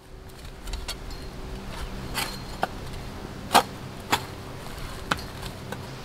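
Scattered sharp knocks and clicks of a long T-handled hand tool being pushed down into stony, leaf-strewn ground, with the loudest knock about halfway through, over a faint steady hum.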